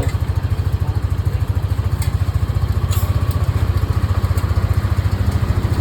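Yamaha Mio Aerox V1 scooter's 155 cc single-cylinder engine idling with a steady, even pulse. It is running again on its repaired fuel pump, whose loose terminals were re-soldered.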